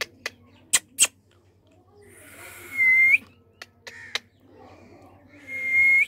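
Indian ringneck parakeet giving two breathy whistled calls about three seconds apart, each ending in a clear whistle, after a few sharp clicks in the first second.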